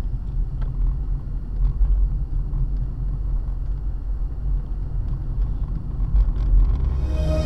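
Steady low rumble of a car on the move, heard from inside the cabin: engine and road noise, with a few faint ticks. Music comes back in near the end.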